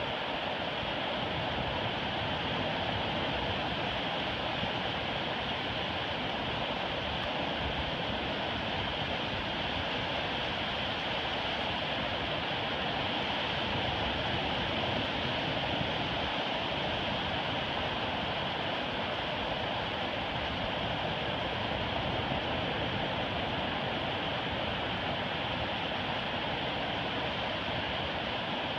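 Ocean surf breaking and washing up a sandy beach, a steady, even rush of waves.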